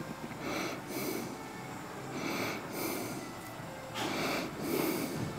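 A man's hard breathing under heavy exertion: sharp, noisy exhales and snorts through the nose, about once a second, growing stronger near the end.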